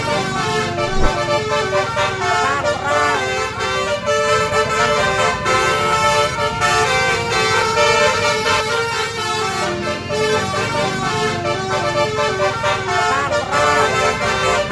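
Bus 'telolet' multi-tone horn playing a tune of quick stepped notes, over engine and street noise.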